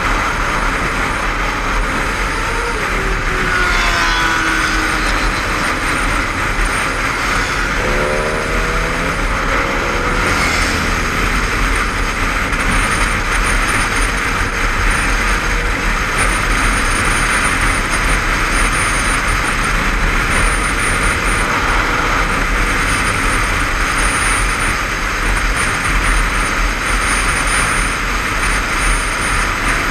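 Steady wind rush and road noise of a motorcycle at dual-carriageway speed, heard through a helmet-mounted camera, with the Honda CBF500's parallel-twin engine note underneath. The engine pitch falls a few seconds in and rises again about eight seconds in.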